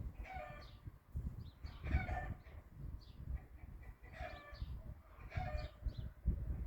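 Chickens clucking: short calls, each well under a second, repeated every one to two seconds. Fainter high chirps from small birds sit in between, over a low, uneven rumble.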